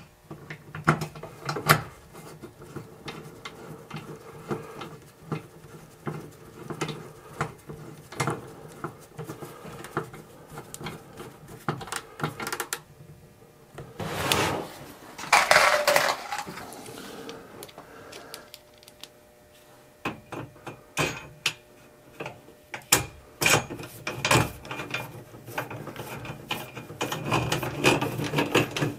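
Hand tools working an Arctic Tern camper window's inner clamp ring into its frame: scattered clicks, taps and small knocks as the ring is fitted and screwed in. There is a louder, noisier stretch of a couple of seconds about halfway through.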